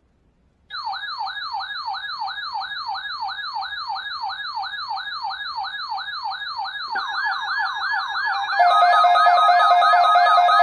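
Electronic siren in a fast up-and-down yelp, sweeping about three times a second, starting abruptly about a second in. A second siren joins near the end, with steady alarm tones that make it louder.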